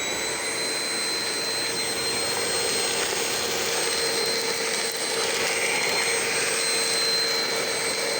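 Vacuum cleaner motor running steadily with a high whine, starting abruptly.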